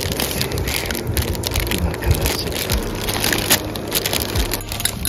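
Crinkly plastic instant-ramen packet being handled and squeezed, a dense, irregular crackling.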